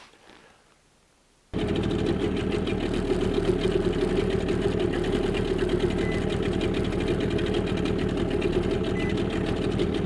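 A small boat outboard motor cuts in suddenly about a second and a half in and then runs steadily. Short high beeps from the echo sounder's fish alarm sound a couple of times in the second half, signalling fish below the boat.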